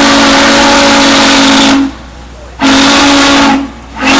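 Steam locomotive whistle blowing loud, steady blasts with the hiss of escaping steam. A long blast cuts off about two seconds in, a shorter one follows, and a third starts near the end.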